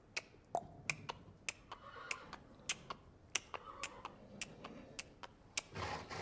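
A series of sharp, irregular clicks and taps, about two a second, with a short rush of noise near the end.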